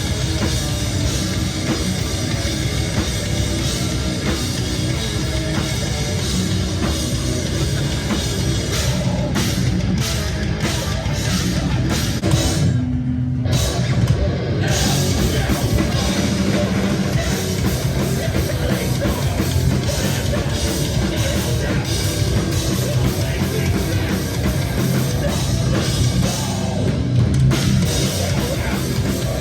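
A heavy rock band playing live at full volume, with distorted guitars, bass and a drum kit. About halfway through, the cymbals and guitars drop out for a moment, leaving one held low note, and then the full band comes back in.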